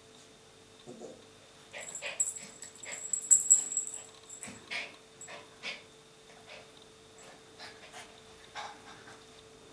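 Five-week-old Appenzeller Mountain Dog puppies playing together: short puppy whimpers and yips scattered through, with a louder, hissy high-pitched burst between about two and four seconds in.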